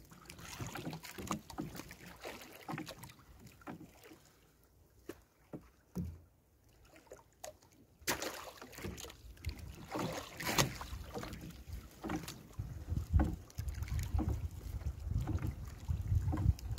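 Wet fishing net being hauled by hand over the side of a small wooden boat: irregular splashes, drips and knocks against the hull, quieter for a few seconds in the middle. Wind rumbles on the microphone in the last few seconds.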